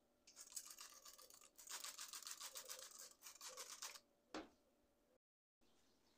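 Quick back-and-forth scrubbing strokes on a stove's surface, stopping after about four seconds, followed by a single knock.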